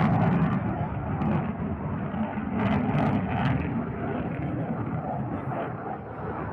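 Aircraft flying past, a continuous low rumble of engine noise.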